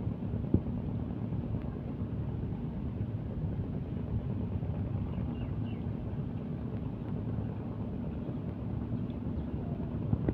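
Steady low rumble of a large riverboat's engines, a deep drone with a faint hum in it.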